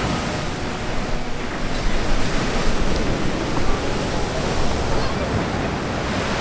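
Canal water surging and crashing over the quay in the big wave thrown up by a cargo ship's sideways launch: a steady, heavy rushing of water.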